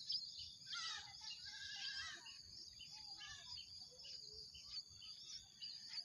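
Birds chirping and calling in short, gliding notes, busiest in the first two seconds, over a steady high-pitched insect drone.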